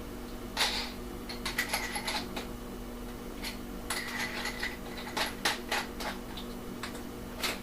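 Scattered light clicks and metallic taps of a drill bit being swapped out in a drill's chuck, over a faint steady hum.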